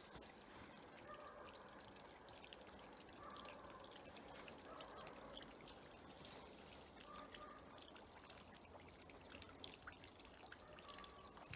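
Near silence: faint room tone with scattered small ticks and a few faint short tones.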